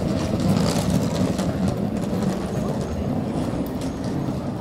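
City street noise made up mostly of a steady low rumble from motor traffic, which swells about a second in as a vehicle passes close.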